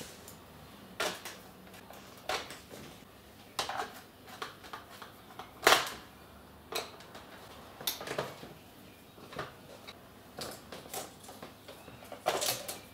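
Irregular clicks and taps of a screwdriver and small screws being handled and driven in while a DJ controller's case is screwed back together, the loudest click about halfway through.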